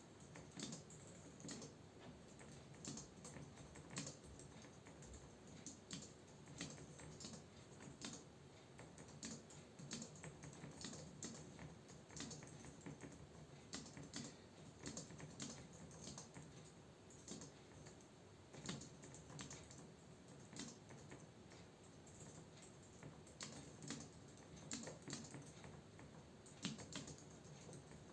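Computer keyboard typing: a continuous run of quiet, irregular keystroke clicks.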